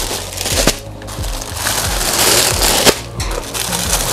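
Crinkly rustling of packaging being handled, with a few sharp clicks and the loudest crackle about two seconds in.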